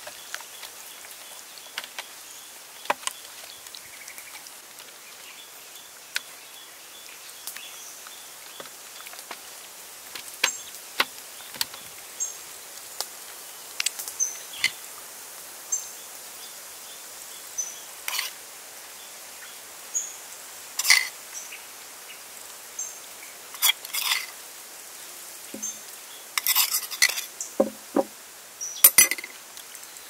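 A metal spoon clinking and scraping against a stainless steel tray and a mortar while a marinade paste is spooned onto raw chicken: irregular sharp taps, more frequent and louder in the second half, over a steady outdoor hiss.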